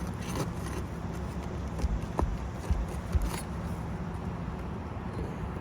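Light knocks and scrapes of hand work on asphalt roof shingles and their nails, with a few sharp taps in the middle, over a steady low outdoor rumble.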